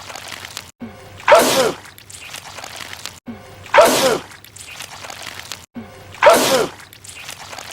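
A man sneezing hard, three times about two and a half seconds apart, each sneeze an identical repeat of a wet sneeze from a film, looped with a brief dropout between repeats.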